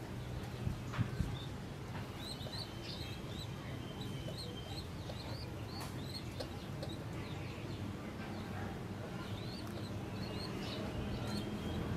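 Pigeon squabs giving short, thin, high-pitched peeps in scattered clusters, typical of nestlings begging. A steady low hum runs underneath.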